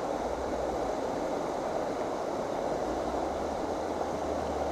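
Steady rush of a stream's current pouring out of a culvert, with a low rumble of wind on the microphone that comes and goes.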